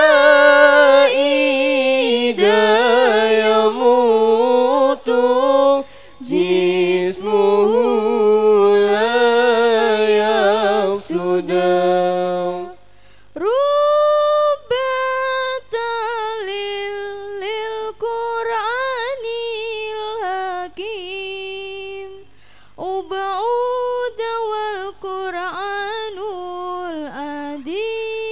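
A girl's solo unaccompanied Arabic religious chant sung into a microphone. It moves in long, held, ornamented phrases with short breaks for breath between them.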